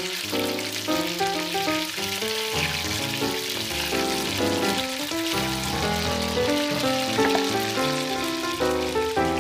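Chicken pieces sizzling in hot oil in a small cast-iron skillet, a steady crackling hiss throughout. Background music with quickly changing notes plays underneath.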